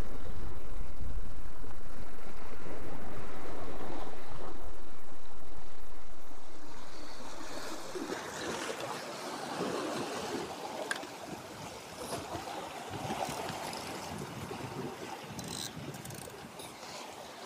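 Wind buffeting the microphone over sea waves washing against rocks. Six to eight seconds in, the wind noise dies away, leaving the uneven wash of the surf on the rock shelf with a few faint clicks.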